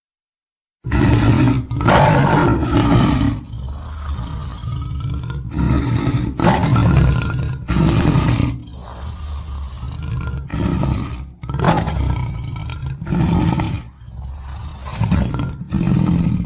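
Tiger roaring and growling: after about a second of silence, a series of loud, rough roars, each a second or two long, with lower growling between them.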